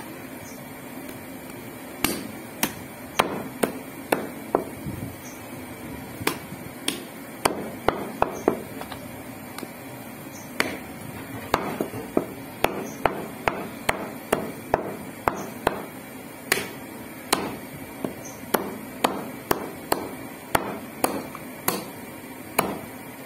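Cleaver chopping goat meat and bone on a round wooden chopping block. A long run of sharp, separate chops starts about two seconds in, irregular at roughly one or two a second.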